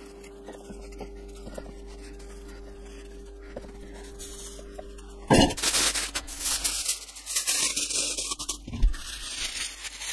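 A steady low hum with a few faint knife taps on a wooden chopping board. About five seconds in, loud crinkling and tearing of aluminium foil as it is torn off and crumpled around smash burgers to wrap them.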